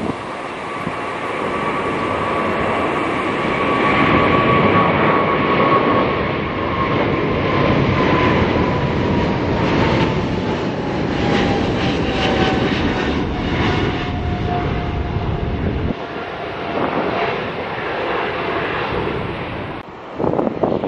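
Boeing 777-300ER's GE90 turbofans at takeoff thrust as the jet climbs out overhead: a loud, crackling rumble with a high fan whine that slowly falls in pitch as it passes and moves away.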